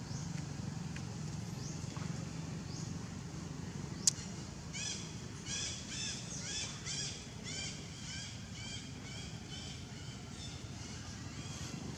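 Baby macaque crying: a run of about a dozen short, shrill, arching squeals, roughly two a second, beginning about five seconds in. A single sharp click comes just before the squeals start.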